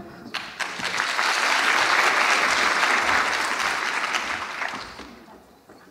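Audience applauding, swelling over the first second and dying away about five seconds in.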